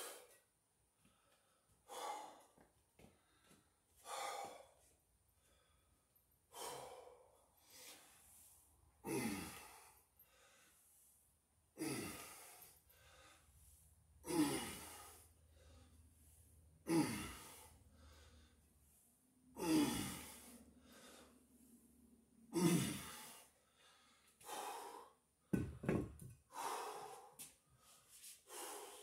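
A man breathes hard from the effort of squats holding a cinderblock, with a loud breath out about every two and a half seconds. Some breaths carry a little voice that falls in pitch. Two short knocks come near the end as the cinderblock is set down.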